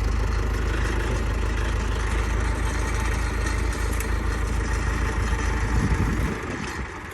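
Engine of the lifting machine running steadily with a deep rumble, then dropping away about six seconds in.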